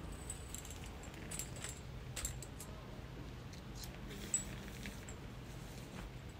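Small metallic clinks and light handling sounds as a tarp shelter and its fittings are adjusted by hand, with one sharper click about four seconds in, over a low steady background rumble.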